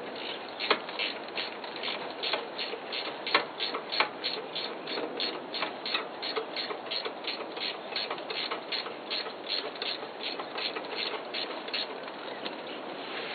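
A ratcheting wrench clicking steadily, about three clicks a second, as a nut at the base of a Kubota B5000 tractor's gear shift lever is worked with quick back-and-forth strokes.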